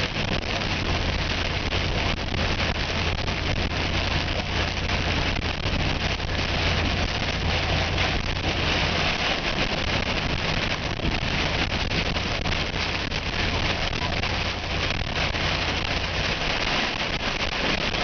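Storm wind and rain rushing steadily against a vehicle, with the vehicle's low drone underneath; these are winds of about 60 mph.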